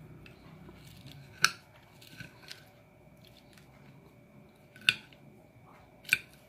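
Knife and fork clinking and scraping against a plate while cutting fried fish, with three sharp clinks about a second and a half, five and six seconds in, and a couple of lighter taps between.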